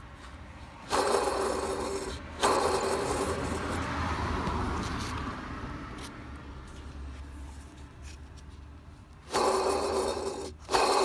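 Worn pulley bearing from a Nissan Skyline's power-steering pump belt, spun and left to coast down, giving a rough grinding rasp. It starts abruptly and fades slowly, three times, the first start about a second in. The rasp is the sign of the failed bearing that caused the abnormal noise.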